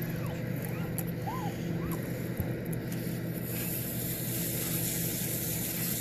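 A hose nozzle opens about halfway through and sprays onto the condenser coil of a rooftop RV air conditioner: a steady hiss of spray. A steady low hum runs underneath.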